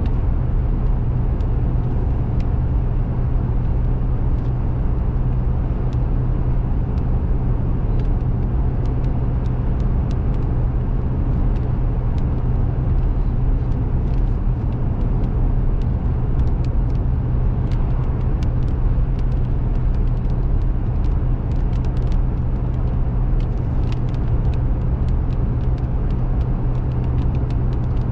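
Steady low drone of a car's engine and tyres heard from inside the cabin while driving, with scattered small sharp ticks.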